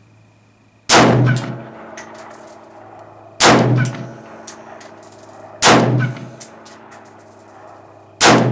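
Four shots from a High Standard HSA-15 AR-15 rifle chambered in 5.56 NATO, fired slowly, about two and a half seconds apart. Each crack is followed by a ringing echo and a few light clinks.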